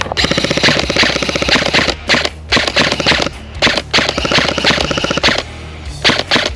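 Airsoft guns firing on full auto: rapid, evenly spaced cracks in several long bursts separated by short pauses.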